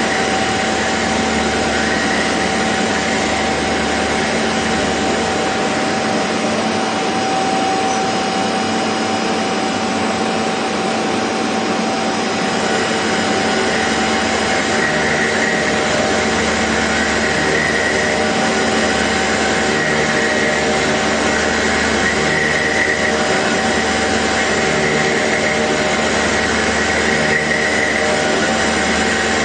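CNC machine running: a steady machine whine with a constant mid-pitched tone over a low hum, and a whirring that swells and fades several times in the second half.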